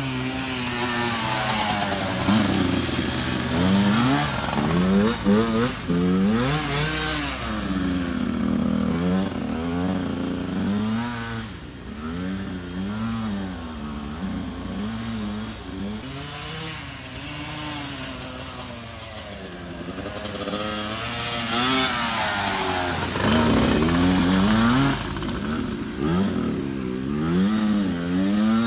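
Dirt bike engine revving up and easing off over and over as the bike rides the track, dropping away quieter around the middle and coming back louder near the end.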